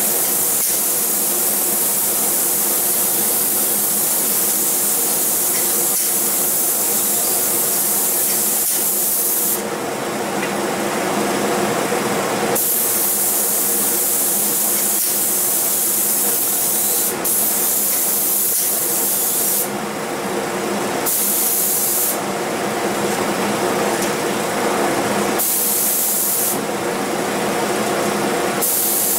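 Spray gun spraying finish onto a wooden cabinet, a loud steady hiss that drops away briefly several times between passes. A steady machine hum runs underneath.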